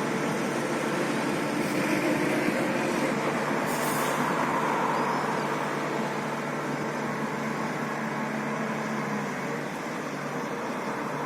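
Steady vehicle engine or traffic noise, a continuous hum with no distinct events.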